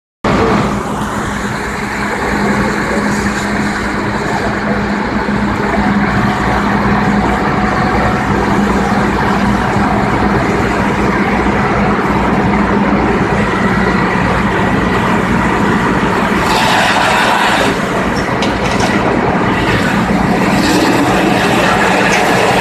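Fire engine's diesel engine and pump running steadily at pumping speed to supply the hose lines, a constant low drone under a wash of noise. A louder hiss swells and fades a few times from about sixteen seconds in.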